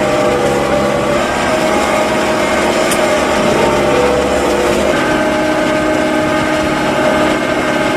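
Tractor engine running steadily under PTO load, driving a Schuitemaker Siwa 140 forage wagon's chain floor and discharge beaters as they unload chopped maize silage. Its tone shifts about five seconds in.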